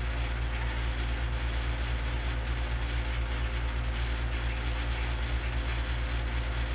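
A steady low hum, unchanging throughout, with no distinct knocks or other events.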